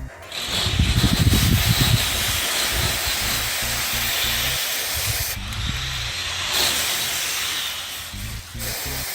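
Aerosol spray-paint can hissing in a long spray that eases briefly in the middle and stops near the end, over background music.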